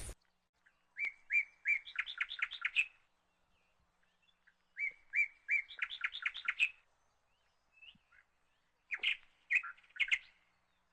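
A bird singing: two phrases of quick repeated chirps, each about two seconds long and climbing in pitch as it speeds up, then a shorter burst of a few chirps near the end.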